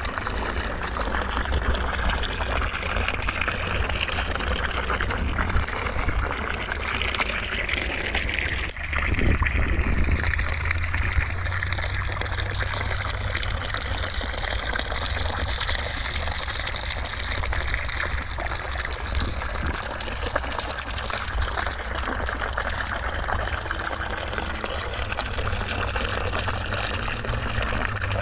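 Steady white noise, a continuous rushing hiss much like running water, with a brief dip in level about nine seconds in.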